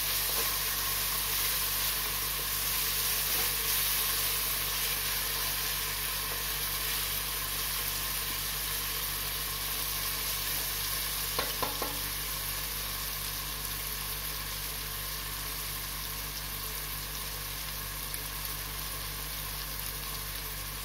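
Chopped onion, green chilli and ginger-garlic paste sizzling steadily in hot mustard oil in an aluminium pressure cooker, stirred with a wooden spatula. There are a few light knocks about halfway through.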